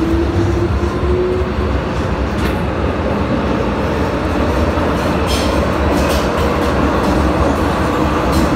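MTR M-Train electric multiple unit running in a tunnel: steady loud rumble of wheels and running gear, with the traction motor whine rising in pitch over the first second or so as the train accelerates, then fading under the rumble.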